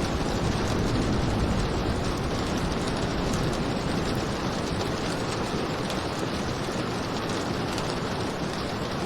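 Steady heavy rain, an even, dense hiss that stays level throughout, with much of its weight in the low and middle range.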